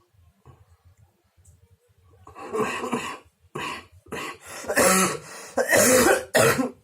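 A man coughing in a fit of about six harsh coughs starting a couple of seconds in, with some throat clearing. It is a phlegmy, productive cough, taken as a sign that his dry cough is loosening and improving.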